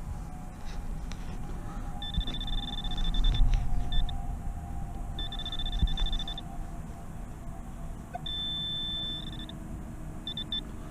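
Metal detector giving repeated high-pitched beeps of one steady pitch, some held about a second and some short blips, as the coil passes over targets in the ground. A low rumble runs underneath.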